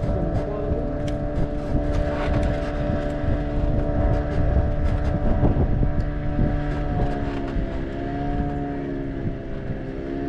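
Motor engine running steadily with a hum, its pitch wavering up and down over the last few seconds; wind rumbles on the microphone.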